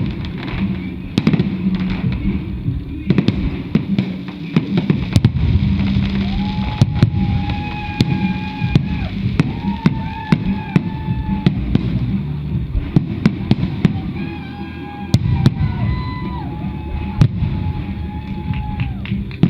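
Show fireworks going off in quick succession: many sharp bangs and crackles over a continuous low rumble, with music playing held notes from about seven seconds in.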